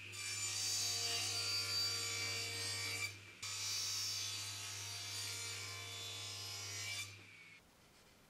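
Table saw ripping phenolic plywood: the blade's cutting hiss and whine over the steady hum of the motor. There are two passes, with a brief break about three seconds in, and the sound stops a little after seven seconds.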